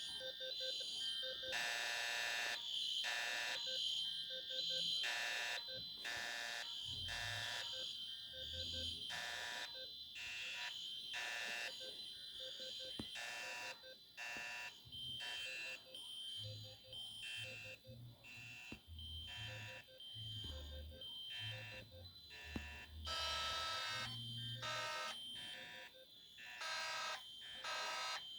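Several fire alarm horns and sounders going off together and not in step with one another. Their pulsing horn blasts overlap, over a steady high-pitched tone.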